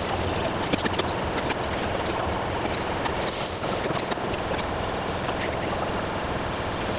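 Metal lathe running while a twist drill in the tailstock chuck bores into a spinning aluminium bar, with frequent small ticks from the cut and a brief high squeal about three and a half seconds in.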